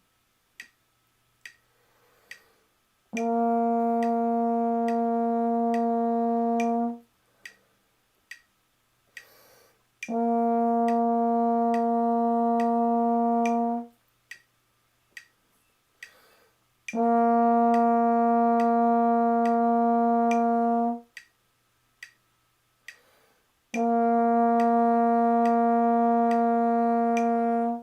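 Trombone playing four long, even notes on B flat, each held for four beats, with a metronome clicking steadily at 70 beats a minute in the rests between them. A soft intake of breath comes just before each note.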